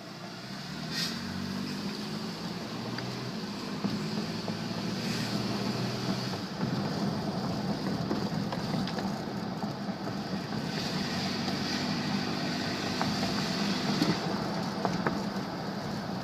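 2000 Nissan Xterra engine rising in pitch over the first couple of seconds as the vehicle accelerates, then running steadily under road noise. The metal grinding this SUV makes on acceleration came from a rusted exhaust-pipe heat shield that had broken loose.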